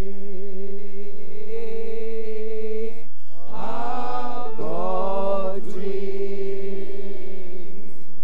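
Worship singing by a minister and her backing singers: long held notes, a brief break about three seconds in, a short phrase of gliding notes, then held notes again.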